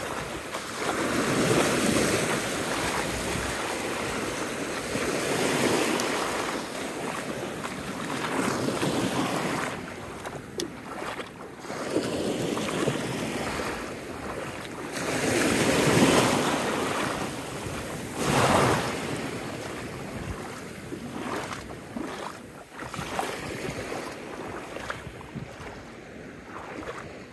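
Small waves washing in over shallow sand, the wash swelling and fading every few seconds, with wind buffeting the microphone.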